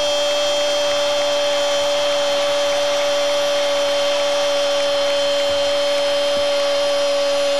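Football commentator's long goal cry, a single "gol" held on one steady high pitch for the winning penalty, over the even noise of a stadium crowd.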